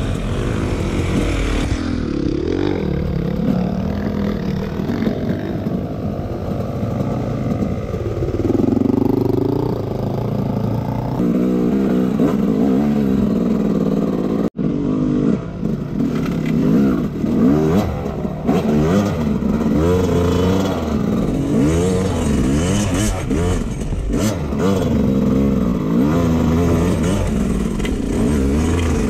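Dirt bike engine revving up and down over and over under hard riding, with some clatter. The sound cuts out for an instant about halfway through, then the revving carries on.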